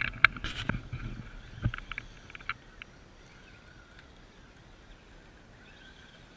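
A burst of close knocks and scrapes in the first two seconds or so, then the faint steady whine of an RC rock crawler's electric motor and gears as it creeps over rocks.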